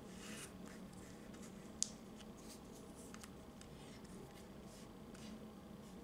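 Hands sliding and setting down small paper-faced magnet cut-outs on a wooden tabletop: faint, scattered scraping and rustling, with one sharp click about two seconds in, over a steady low hum.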